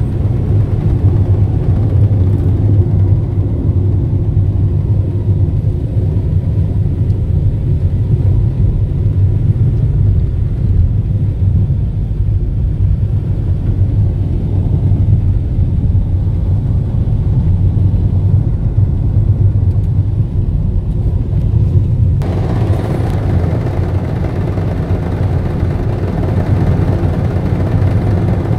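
Steady low rumble of a car driving, heard from inside the cabin: engine and tyre noise. About three-quarters of the way through, a brighter hiss joins abruptly and stays.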